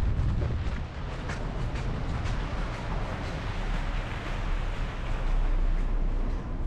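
Wind buffeting the microphone in a low, steady rumble, with faint footsteps crunching through snow about once a second.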